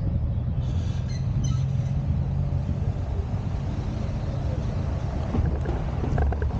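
A car driving along a road, with a steady low rumble of engine and tyres. A few light ticks come near the end.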